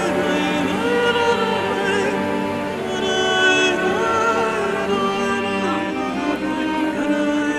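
Background music with a sung melody over sustained instruments.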